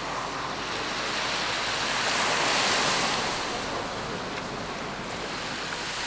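Small waves washing onto a sandy beach, mixed with wind, swelling to their loudest about two to three seconds in.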